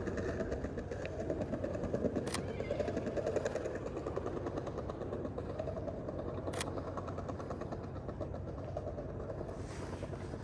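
Two sharp single clicks about four seconds apart, from the shutter of a Sony A7R III camera firing. They sit over a steady low mechanical rumble with a hum.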